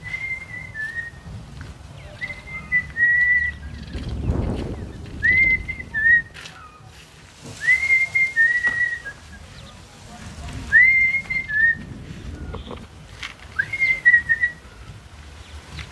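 A high two-note whistle, a quick rise to a held note that then steps slightly lower, repeated six times at about two-and-a-half to three-second intervals. Low rustling and a few dull knocks sound between the whistles, most strongly around four seconds in.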